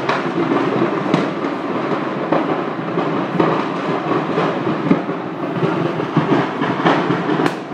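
A large fire burning through a gas station building: a steady, dense noise with about half a dozen sharp pops and cracks scattered through it.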